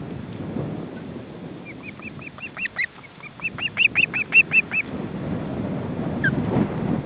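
Osprey calling: a rapid series of short whistled chirps for about three seconds, starting near two seconds in, then one more chirp near the end. Wind rumbles on the nest-cam microphone underneath.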